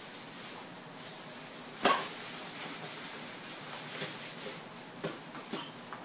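Paper streamers and magic props being handled: faint rustling, a sharp snap about two seconds in, and a few lighter clicks later on.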